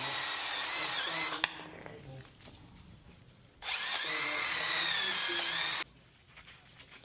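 A small high-speed power tool whining as it sands and cleans up a metal part of a mixing valve. It stops with a click a little over a second in, then runs again for about two seconds in the middle.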